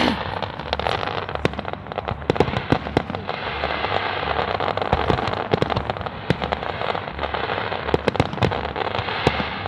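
Fireworks display bursting: a dense, irregular run of sharp bangs and crackles, several a second, over a continuous crackling hiss.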